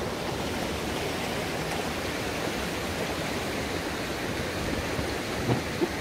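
Shallow mountain stream rushing over rocks and small rapids, a steady wash of water, with two brief louder sounds near the end.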